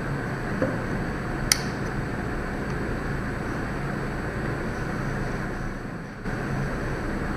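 A steady background hum and hiss, with one sharp click about a second and a half in and a fainter tick just before it.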